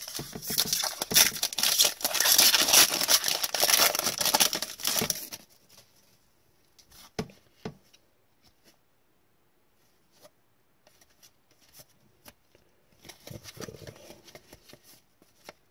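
An Upper Deck hockey card pack wrapper being torn open and crinkled for about five seconds. Then a few light clicks, and soft rustling of the cards being handled near the end.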